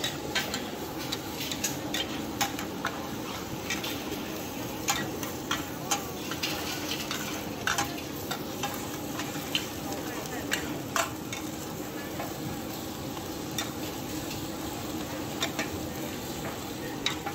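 Egg for an oyster omelette sizzling in oil in a large wok, while a metal ladle and spatula scrape and knock against the pan in sharp, irregular clacks over the steady frying.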